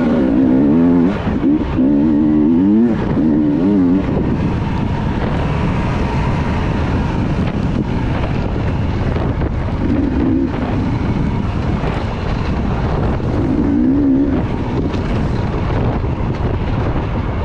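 Racing motorcycle engines revving as they run, over a steady loud rumble. The engine pitch wavers up and down through the first four seconds and briefly again about ten and fourteen seconds in.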